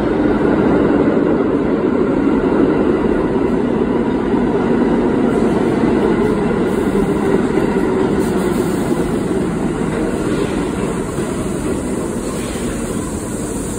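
A New York City Subway A train running along the far track of an underground station: a loud, steady rumble of steel wheels on rail that eases slightly toward the end.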